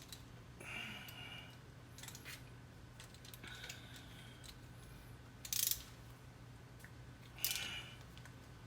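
Socket ratchet wrench tightening the rear differential fill plug on a C7 Corvette, heard as a few short, scattered bursts of metallic ratcheting and clinking.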